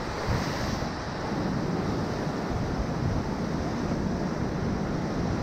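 Ocean surf breaking and washing over rocks below, a steady rushing noise, with wind buffeting the microphone.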